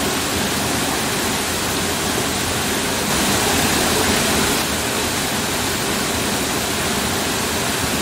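A waterfall pouring into a rock pool: a steady rush of falling water, a little louder for about a second and a half near the middle.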